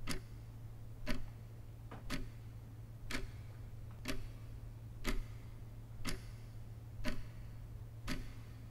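Clock ticking steadily, one sharp tick a second, over a faint low hum.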